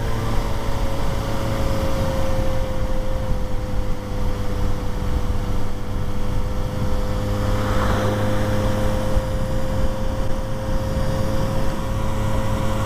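Engine running steadily, a constant whine over a low hum, with a brief swell of noise about eight seconds in.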